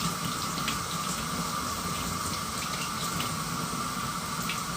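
Tap water running steadily into a sink, with a few faint clicks.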